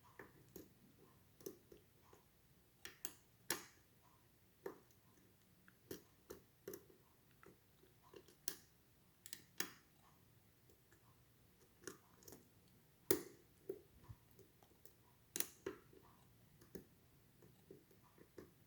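Faint, irregular clicks and taps of a lock pick working the pins inside an ASSA 700 lock, with a few louder clicks among them.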